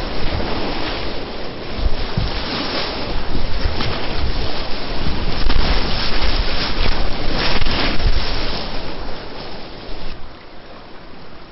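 Whitewater rapids rushing and splashing close around a kayak, with repeated surges as waves break over the bow. The rush gets much quieter about ten seconds in.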